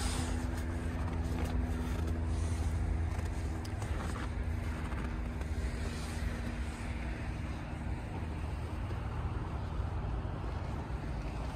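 Ram pickup truck's engine idling with a steady low hum that fades somewhat after the first few seconds, along with scattered footsteps crunching in snow.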